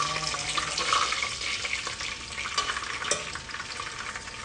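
Breaded chicken cutlets frying in hot oil in a pot, a steady crackling sizzle as the pieces are turned with a fork, with a brief click about three seconds in.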